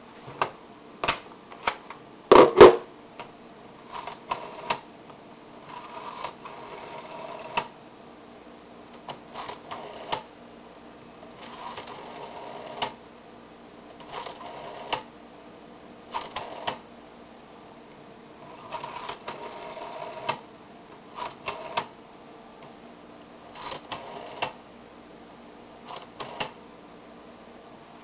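Rotary telephone dial being dialed through about ten digits: for each digit the dial is wound round and let go, then runs back with a rattle of pulse clicks lasting from under a second to about a second and a half. A loud clunk comes near the start.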